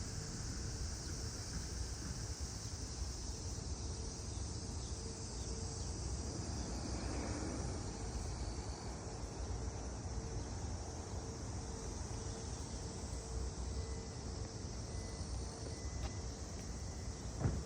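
Steady high-pitched chorus of insects such as crickets over a constant low rumble, with a faint pulsing hum and one short knock near the end.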